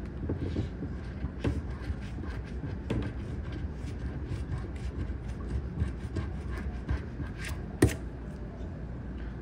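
A coin scratching the latex coating off a scratch-off lottery ticket in short, uneven scraping strokes. One sharper, louder scrape comes near the end.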